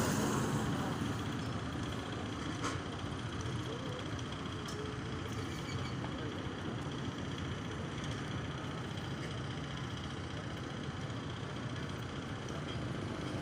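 Steady low rumble of vehicle running noise, with one faint click about two and a half seconds in.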